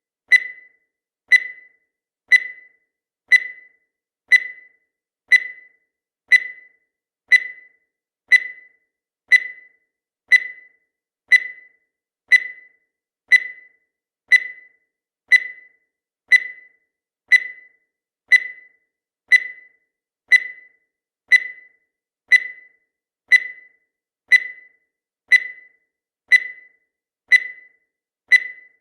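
Countdown timer's tick sound effect: one short, sharp tick each second at a steady pace, dying away quickly after each stroke.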